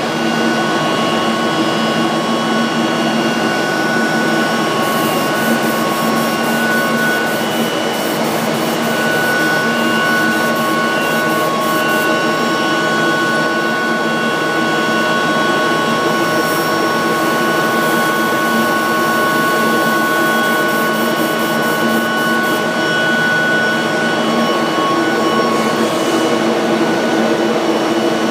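Pipe coating and curing system running: a steady airy mechanical whir with several steady whining tones over it. Twice there is a stretch of rapid ticking, one a few seconds in and one past the middle.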